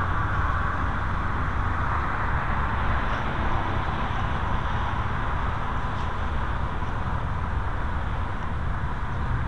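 Steady road-traffic noise with a low rumble underneath.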